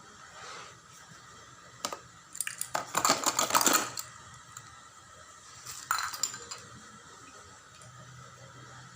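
Cupping equipment being handled, small hard pieces clinking and rattling against each other: one click, then a dense run of clinks about two to four seconds in, and a shorter run a little before the end.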